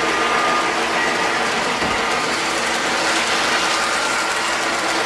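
Three-rail O-gauge model train running on its track: a steady mechanical sound of metal wheels on the rails and motor gearing.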